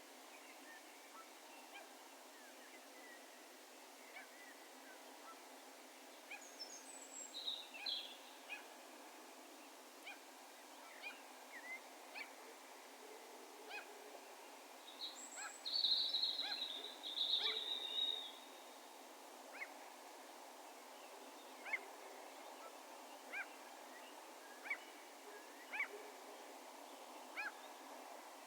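Distant wild bird calls echoing over open ground: short, scattered notes throughout, with a louder run of high chattering calls about halfway through, over a faint steady outdoor hiss.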